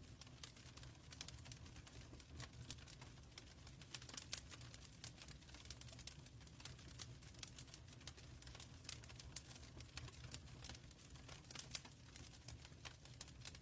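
Wood fire burning in a fireplace: dense, irregular crackles and small pops over a soft low rumble.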